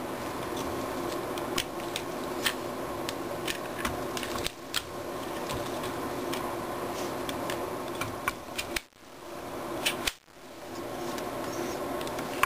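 Irregular light clicks and clacks of a VLTOR nylon plastic tactical bipod's legs being folded and handled against a rifle's rail, over a steady background hum.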